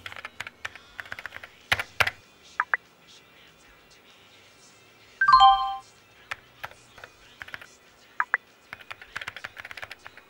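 Computer keyboard typing in short bursts of clicks. About five seconds in, a loud instant-messenger alert chime plays, a quick run of tones stepping down in pitch, as a new chat message arrives.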